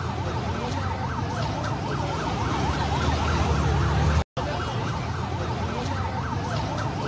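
Emergency vehicle siren sounding in a fast rising-and-falling yelp over a low rumble of street noise. The sound cuts out for a moment a little after four seconds in and starts again.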